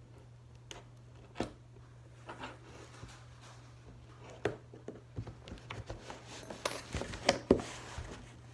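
Scattered taps, clicks and rustles of a cardboard box and its packing being handled, sparse at first and busier and louder in the last few seconds, over a steady low hum.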